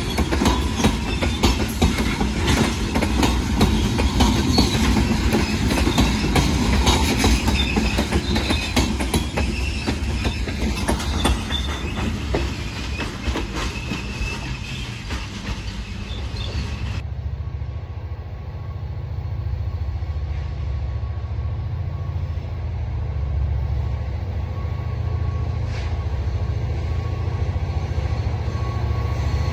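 Freight train's open-top hopper cars rolling past, steel wheels clicking over the rail joints. About halfway through, the sound cuts off abruptly to a low, steady rumble.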